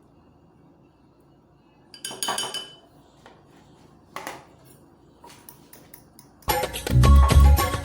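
A few short clinks and scrapes of metal cutlery against dishes, the first about two seconds in and another about four seconds in. Background music with a heavy bass beat starts loudly near the end.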